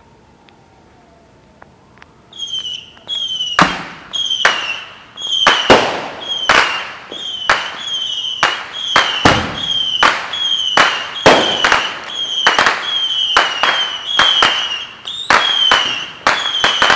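A fast barrage of firework bangs, about one and a half a second, starting a couple of seconds in, each bang trailed by a short high whistle that drops slightly in pitch.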